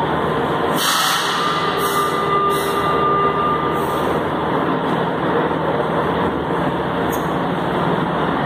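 Metro train standing at an underground platform with its doors open, its on-board equipment running with a steady hum. A few short hisses come between about one and four seconds in.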